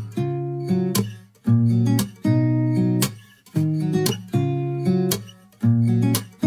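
Outro music: acoustic guitar strumming chords in a steady rhythm, each chord ringing and fading before the next.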